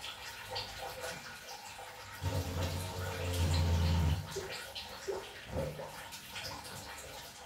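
Water running and splashing from an electric geyser being drained into a container, with small knocks and clicks from handling. A low steady hum sounds for about two seconds in the middle.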